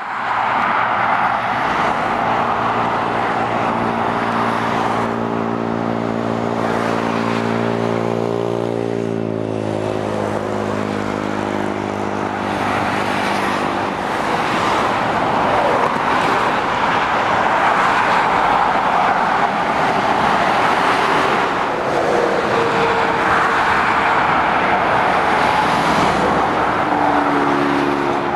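Steady road traffic passing below: tyre noise from cars and lorries. A heavy vehicle's diesel engine drones through it and drops in pitch as it passes, about eight to nine seconds in. Near the end, another engine note comes through the traffic noise.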